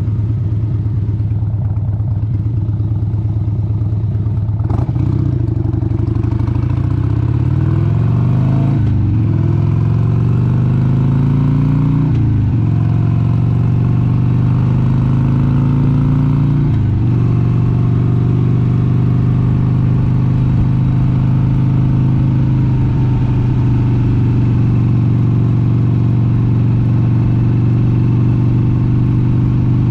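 1996 Harley-Davidson XLH883 Sportster's 883 cc air-cooled V-twin running on the road. It pulls away and accelerates through the gears, the pitch climbing and dropping back at each of three upshifts, then settles into a steady cruise for the last dozen seconds.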